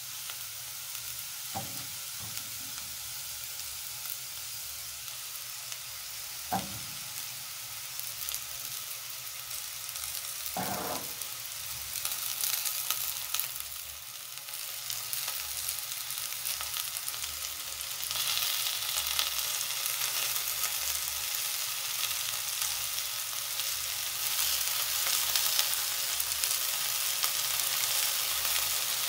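Beet stems and freshly added beet leaves sizzling in butter in a frying pan, the sizzle growing louder about halfway through. A few brief stirring sounds come in the first half.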